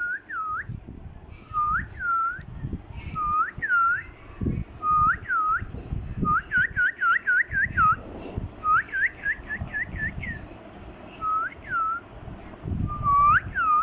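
Pet parrot whistling: a repeated swooping whistle that dips and rises, given in pairs, with two quick runs of five or six whistles in the middle. Low irregular bumps underneath.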